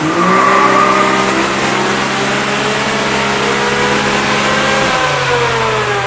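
Can-Am Maverick X3's turbocharged three-cylinder engine and CVT drivetrain making a full-throttle pull on a chassis dyno. The pitch climbs steadily for about five seconds, then falls away as the throttle is let off.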